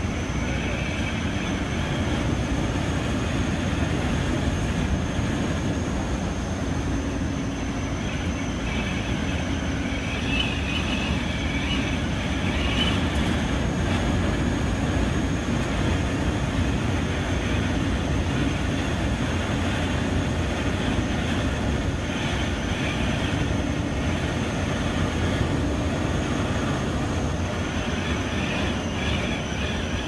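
Steady rumble of a tour bus driving along the road, heard from inside the cabin, with a thin steady high whine over it.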